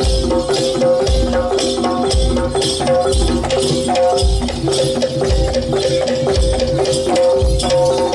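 Jaranan-style campursari music: dense hand-drum and rattle percussion over held melodic tones, with a deep beat about once a second.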